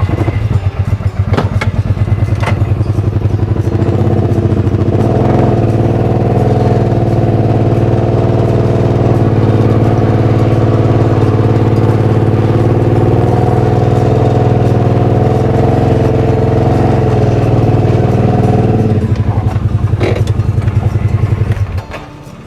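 ATV engine running close by under load as it tows a small trailer-mounted backhoe. It picks up about four seconds in, holds steady, eases off near the end, then drops away suddenly.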